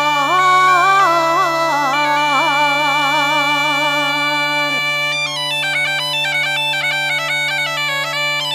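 Gaita bagpipe playing, its steady drone under the chanter's melody. About halfway through, the chanter turns to a quick run of short ornamented high notes.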